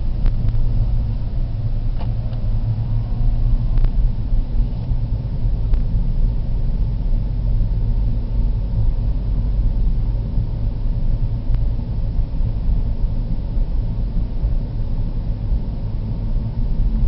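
Steady low rumble of a car driving, heard from inside the cabin, with a few faint clicks.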